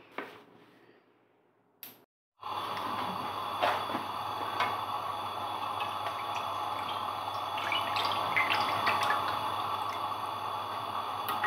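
Hot ghee being poured through a small wire-mesh strainer into a wok: a steady pouring splash with small crackles. It starts suddenly about two seconds in, after near silence.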